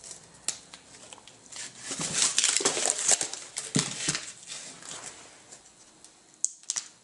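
Cardboard sheets rustling and scraping against each other as they are pulled apart and slid out by hand, with scattered taps and clicks, loudest about two to three seconds in.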